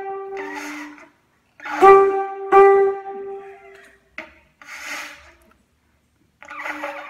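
Two conch shells blown as horns: steady horn blasts at two pitches, one higher and one lower. The longest and loudest note starts about two seconds in and holds for about two seconds. Breathy, airy blowing comes between the notes.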